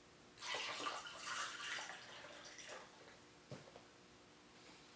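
Water poured into a drinking glass: a splashing pour lasting about a second and a half, then a few fainter splashes and a single light knock about three and a half seconds in.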